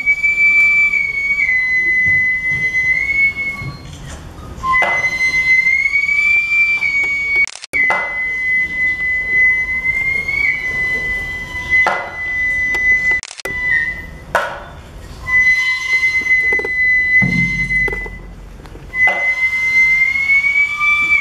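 Gagaku court music: a high, sustained flute line with slight bends in pitch over the ensemble, punctuated by sharp drum strokes every few seconds.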